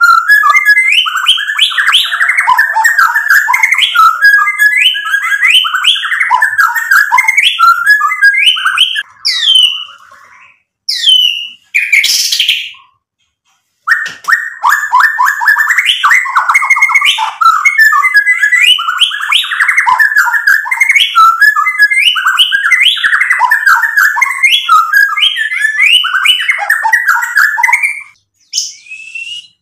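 Male white-rumped shama singing its full song in rapid, varied whistled phrases, breaking off for a few scattered notes and a short pause about halfway, then singing on, with a brief pause near the end.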